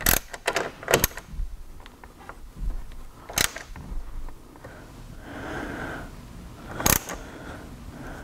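Sharp metallic clicks and clinks, a few separate ones a second or more apart, from a ratchet, socket and wrench being handled and set on a rivet nut insert in the sheet-metal roof.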